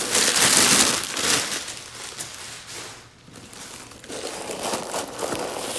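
Crinkly packing stuffing being pulled out of a backpack, rustling and crumpling in bursts. It is loudest in the first second or so, eases off about three seconds in, then picks up again near the end.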